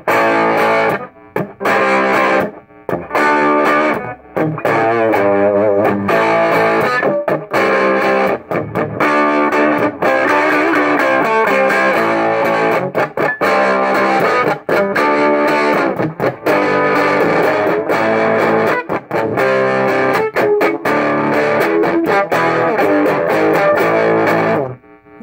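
Gibson Les Paul electric guitar played through a small recapped Knox Trem-tone tube combo amp with a gritty tone: chords and riffs with frequent short breaks between phrases, and a longer pause near the end.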